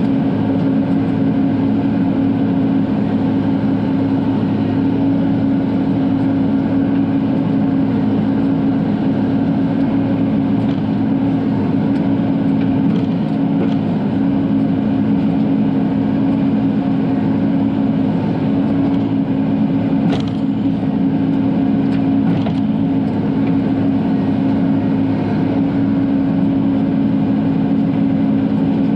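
Bobcat E42 mini excavator's diesel engine running steadily, with a few faint knocks about two-thirds of the way through.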